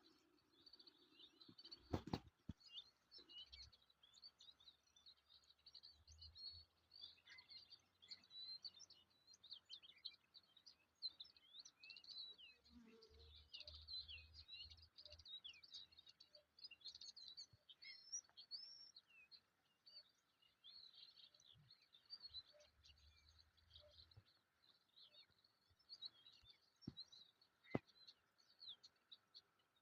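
Faint chorus of many small birds chirping and twittering, overlapping throughout. A sharp click about two seconds in is the loudest sound, with two fainter clicks near the end and a low rumble at times.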